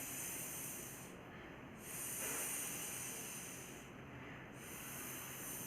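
A woman demonstrating the phonics sound of the letter F: a long breathy "fff" hiss, held for about two seconds at a time and repeated three times with short breaks between.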